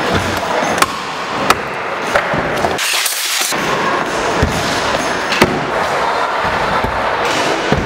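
Stunt scooter's wheels rolling on a plywood skate bowl, a steady rumble with a few sharp clacks. The rumble briefly drops away about three seconds in.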